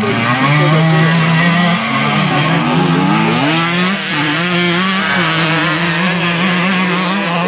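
Dirt bike engine running hard under load as the bike climbs a dirt hill track. The engine note rises and falls with the throttle and dips sharply about half a second in and again around four seconds in.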